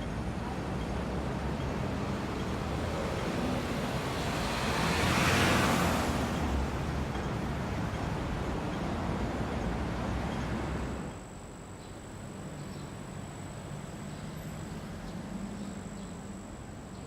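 Urban street traffic ambience: a steady wash of road noise, with one vehicle passing close and swelling loudest about five seconds in. Near eleven seconds it cuts to a quieter street ambience with a thin, steady high whine.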